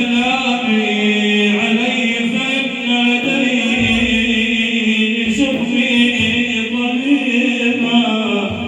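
Male voice chanting a madih, an Islamic praise song for the Prophet, holding long notes that move slowly from pitch to pitch.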